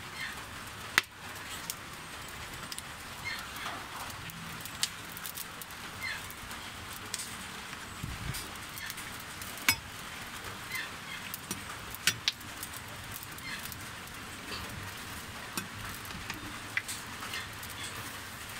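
Wood fire burning under a cooking pot, crackling with sharp pops at irregular intervals over a steady hiss.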